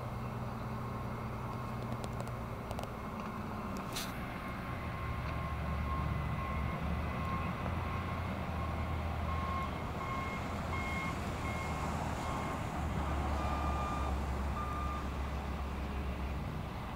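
A truck's back-up alarm beeping repeatedly, starting about four seconds in and stopping near the end, over a steady low engine rumble. A single sharp click comes about four seconds in.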